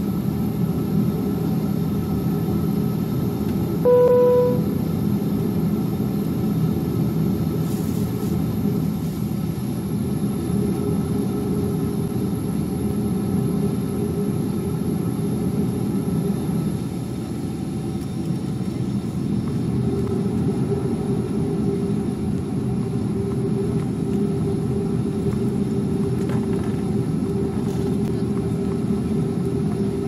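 Steady rumble of a Boeing 737's jet engines heard inside the cabin as the aircraft taxis. A single cabin chime sounds briefly about four seconds in.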